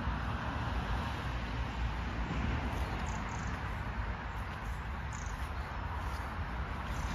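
Steady outdoor background noise: a low, fluttering rumble with a hiss above it, and a few faint, short, high chirps a few seconds in.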